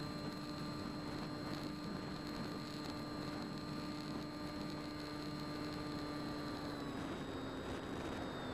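Bixler RC plane's electric pusher motor and propeller humming steadily, picked up by the onboard camera along with rushing air; the pitch steps down slightly about seven seconds in.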